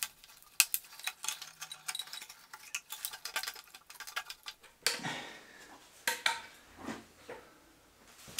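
Light metallic clicks and clinks of hand tools and engine parts, dense and irregular for about four seconds, then several short rubbing or scraping sounds as coolant hoses are worked off a diesel engine.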